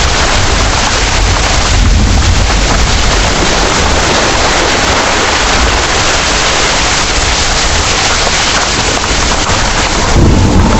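Heavy rain pouring steadily, with a deep rumble of thunder underneath; the sound grows briefly louder near the end.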